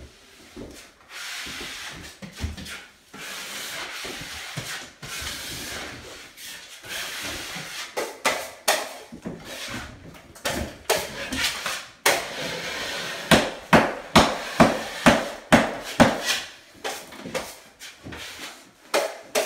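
Steel drywall taping knife scraping joint compound along ceiling seams. Long rasping strokes at first, then a run of short, sharp scrapes about two a second.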